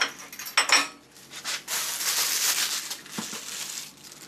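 Two sharp metal clinks, each with a brief ring, as steel tool-rest parts are set down, then a plastic bag rustling and crinkling for about two seconds.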